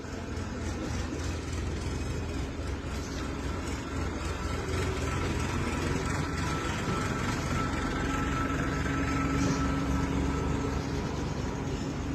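A motor running steadily: a low hum with a faint high whine over it, growing slowly louder.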